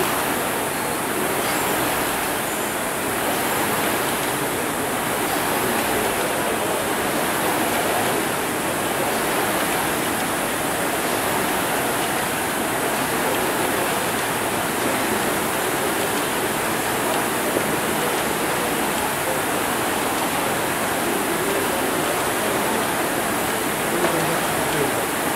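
Many air-braked rowing ergometer flywheels spinning at once, a loud steady rushing din that swells faintly with the rowing strokes.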